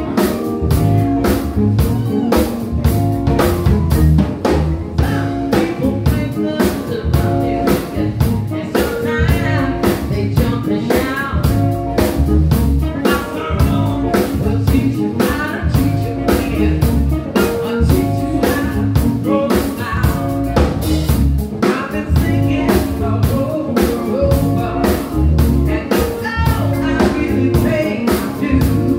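Live blues band playing, with a steady drum-kit beat, guitar and keyboards under a woman singing.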